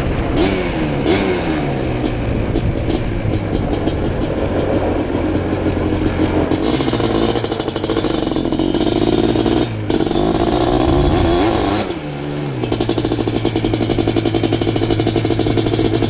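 Suzuki LT500R Quadzilla's 500cc single-cylinder two-stroke engine, with an FMF expansion-chamber exhaust, under hard riding. It revs up and down through the gears, with sharp ticks in the first few seconds. The throttle cuts briefly about ten seconds in, and near the end the engine holds a steady high rev.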